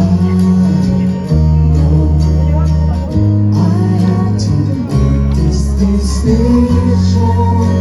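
Music with singing over a heavy bass line, the bass moving to a new note every second or two.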